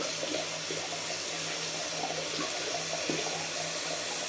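Tap running steadily into a bathroom sink, with a steady low hum underneath.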